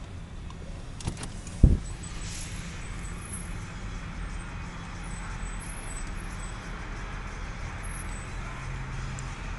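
A vehicle engine idling steadily, with a sharp knock about a second and a half in.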